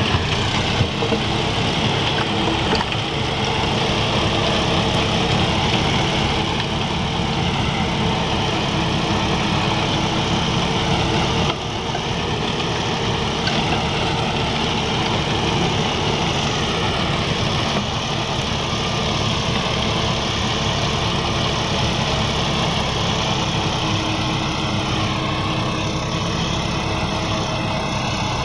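A John Deere 5210 tractor's 50 hp diesel engine runs steadily under load while it drives a rear-mounted rotavator through the soil.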